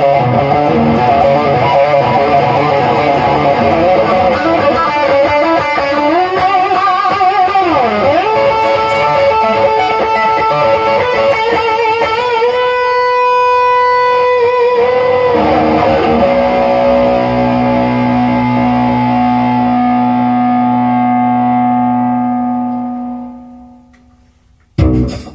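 Amplified electric guitar (Fender Stratocaster) playing an improvised blues lead with string bends, ending on long held notes that ring out and fade away about 23 seconds in.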